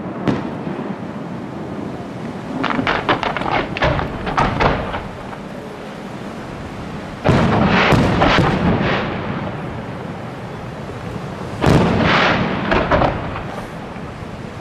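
Fireworks display: aerial shells bursting in three volleys of quick sharp reports, about two and a half seconds in, at about seven seconds and near twelve seconds. Each volley dies away in a rumble.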